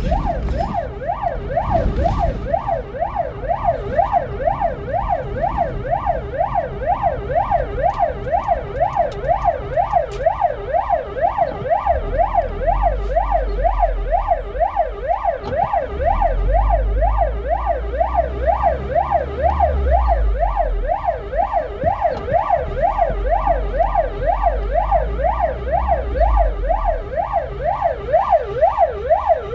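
Ambulance siren sounding in a fast yelp, its pitch rising and falling about twice a second without a break. It is heard from inside the ambulance's cab over the low rumble of the moving vehicle, which swells for a stretch around the middle.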